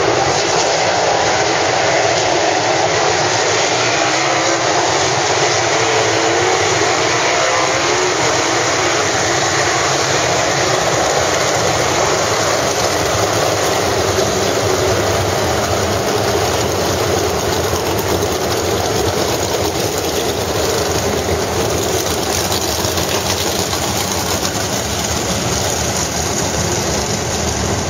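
A pack of World of Outlaws sprint cars with unmuffled 410 cubic-inch methanol V8s running together at part throttle on the four-wide pace lap before the green flag. It is a dense, steady engine noise, with single engines rising and falling in revs in the first several seconds.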